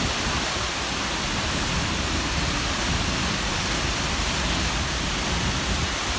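Tall waterfall plunging into its pool, a steady, even rush of falling water heard from close by.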